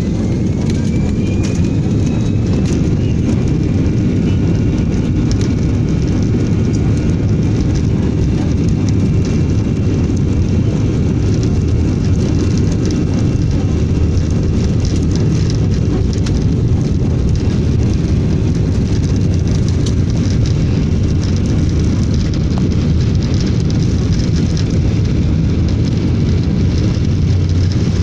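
Airliner cabin noise: the steady, loud low rumble of jet engines and airflow heard from inside the passenger cabin.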